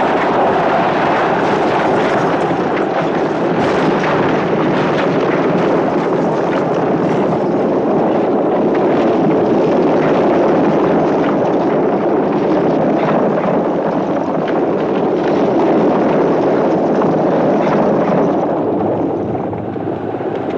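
Horse-drawn chariots racing: a loud, continuous rumble and clatter of galloping hooves and wheels, easing slightly near the end.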